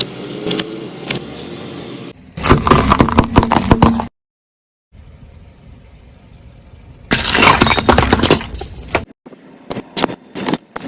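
Car tyre crushing soda bottles: two bursts of dense crackling and crunching, about two seconds in and again about seven seconds in, with a sudden cut to silence between them. Scattered single cracks follow near the end.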